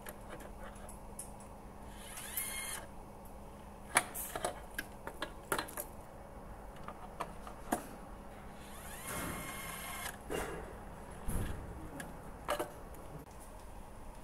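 Electric screwdriver whirring up briefly twice, driving screws home, with scattered light clicks and knocks of parts being handled and a low thump near the end.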